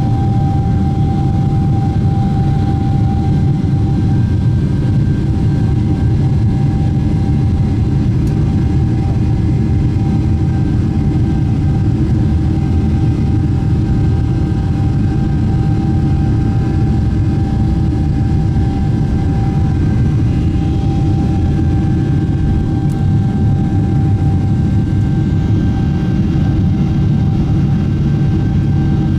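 Boeing 777-300ER's GE90-115B turbofan engines at takeoff thrust, heard from inside the cabin: a loud, steady rumble with a thin steady whine over it, through the takeoff roll and liftoff.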